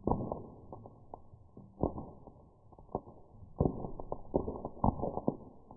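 Popcorn kernels popping in a skillet over a wood fire, slowed down, so each pop is a low thud. The pops come irregularly, a few at first, then several in quick succession from about halfway in.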